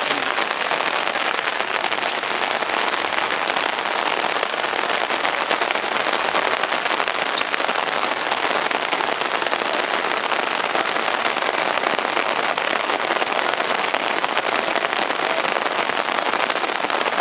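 Heavy rain falling: a steady, dense hiss of drops hitting the ground and surfaces, unchanging throughout.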